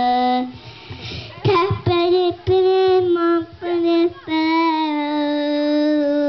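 A young girl singing unaccompanied into a microphone. A held note breaks off about half a second in, then come a few short sung notes and a long held note near the end.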